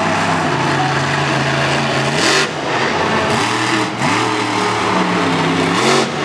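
Monster truck engine running loud and steady, its revs climbing in several quick sweeps, under a constant wash of arena noise. A short, loud rush of noise comes about two seconds in.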